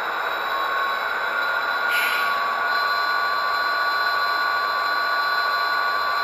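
Sound-equipped HO-scale model diesel locomotive idling through its small onboard speaker: a steady engine hum with thin whining tones and a short higher burst about two seconds in.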